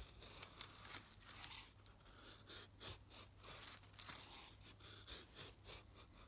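A knife blade carving thin curled shavings off a wooden stick: a series of short, dry scraping strokes, about two a second.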